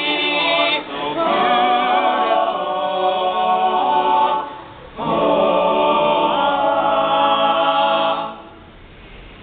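All-male a cappella group singing in close harmony, voices only with no instruments. A short break comes about four and a half seconds in, then a second phrase ends about eight seconds in.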